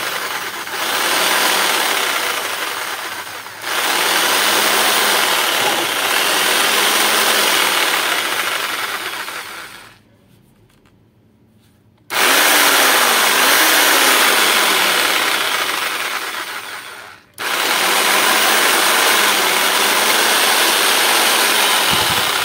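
Ozito JSG 442VK variable-speed jigsaw running with no workpiece, test-running its modified blade holder. It runs in four stretches, dipping briefly twice and stopping for about two seconds near the middle. The motor's pitch slides up and down as the speed changes.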